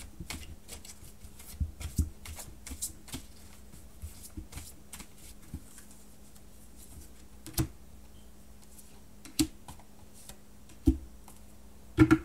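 A deck of oracle cards being shuffled by hand, a run of light card clicks. Then about four single cards are set down on the table a second or two apart, each a soft slap, the last two close together near the end.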